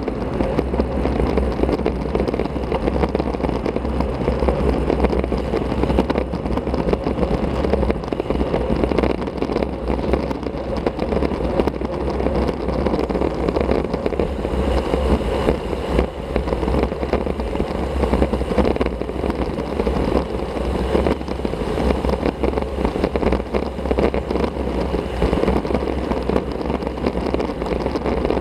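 Steady rush of wind and tyre noise picked up by an action camera's microphone riding on a moving road bike.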